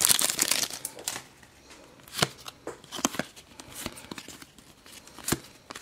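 Foil pack of Panini Adrenalyn XL trading cards crinkling as it is torn open for about the first second, then a few scattered soft clicks and snaps as the cards are pulled out and handled.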